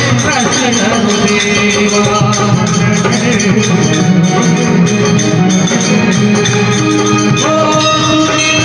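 Live Hindu devotional bhajan: a man singing through a microphone over an electronic keyboard, with a dholak drum and hand clapping keeping a steady rhythm.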